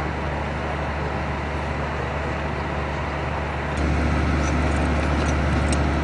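Fire engine's engine idling as a steady low hum, stepping up louder about four seconds in. A few light clicks sound near the end.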